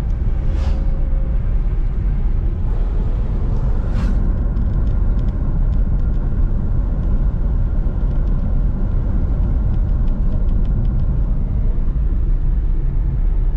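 Steady low road and engine rumble inside a car cruising on a highway. Two brief hisses come through, about a second in and again about four seconds in.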